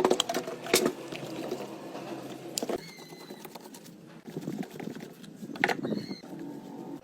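Scraping and rubbing handling noise, with four sharp clicks or knocks spread through it.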